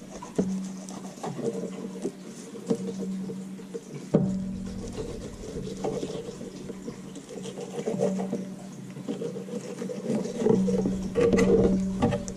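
Fillet knife cutting a crappie fillet on a plastic cutting board: soft wet scraping with scattered taps and clicks of the blade and the fish on the board, a sharper tap about four seconds in and a busier stretch near the end. A low steady hum runs underneath.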